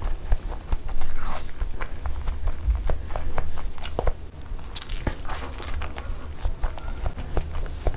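Close-miked chewing of masala-coated boiled eggs, with many wet mouth clicks and smacks, and bites into a whole egg about halfway through.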